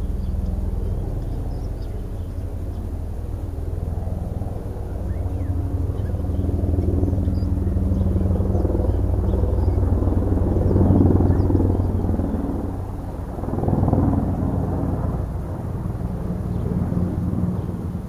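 Steady low rumble of road traffic with a faint engine hum, swelling as vehicles pass about ten seconds in and again about fourteen seconds in.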